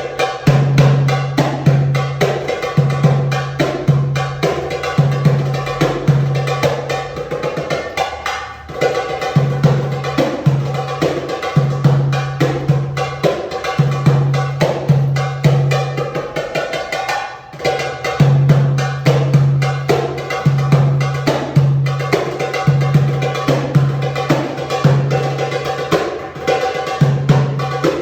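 Tabla solo: rapid, dense strokes on the right-hand drum, with resonant pitched bass strokes on the left-hand bayan recurring in a steady rhythmic cycle, over a sustained melodic accompaniment. The playing dips briefly twice.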